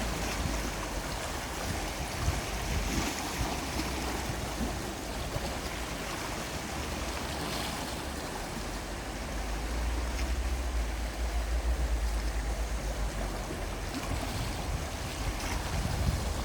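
Gentle sea waves washing, steady through, with a low rumble underneath that grows louder for a few seconds around the middle.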